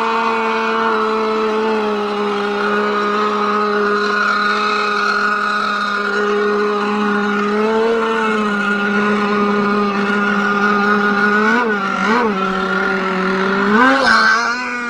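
Small two-stroke gasoline engine of an RC gas boat idling steadily while warming up on its stock tune, with three quick throttle blips in the last few seconds.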